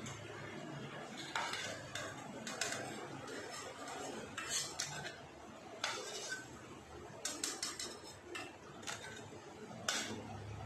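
Sticky rice flour cakes deep-frying in hot oil with a steady sizzle, while metal tongs and a spatula clink and scrape against the pan and a steel bowl many times.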